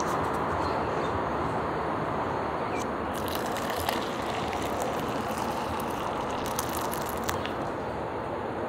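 Steady outdoor background noise, with light taps and crinkles as a paper cup and packets are handled, and hot water poured from a kettle into the paper cup about four seconds in.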